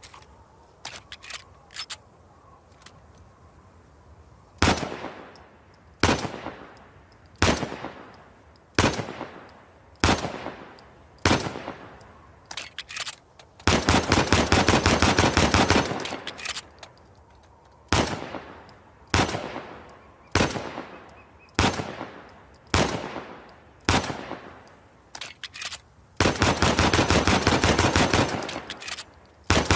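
.45 calibre Para handgun sound effect. A few light metallic clicks, then single gunshots about a second and a half apart, broken by a rapid string of shots lasting about two seconds. More clicks and single shots follow, and another rapid string of shots starts near the end.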